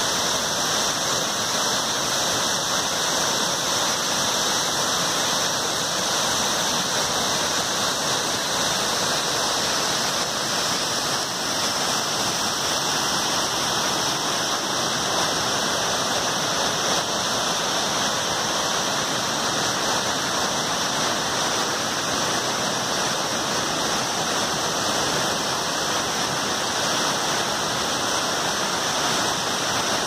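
Waterfall cascading over rocks into a pool: a steady, even rush of water.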